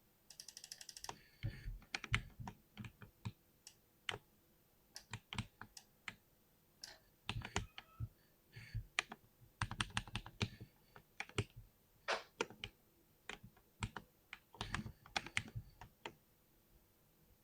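Computer keyboard being typed on: irregular bursts of key clicks and clacks, with a fast rapid-fire run of keystrokes near the start.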